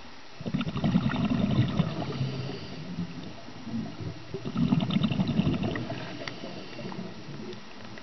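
Scuba diver breathing out through a regulator underwater: two exhalations about four seconds apart, each a couple of seconds of low gurgling bubbles with a crackle of popping on top.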